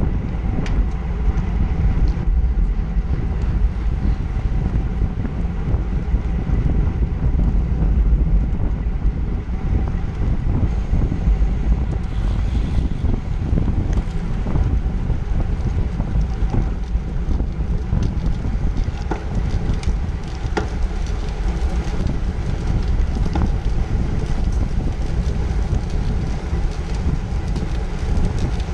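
Steady wind rush over a road bike's onboard camera microphone, mixed with tyre noise on asphalt at race speed. A few faint clicks come about two-thirds of the way through.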